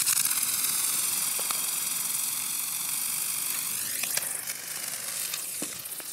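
A small solid-propellant model rocket motor burning with a loud, steady hiss that weakens after about four seconds. Only one of the helicopter's two motors has lit.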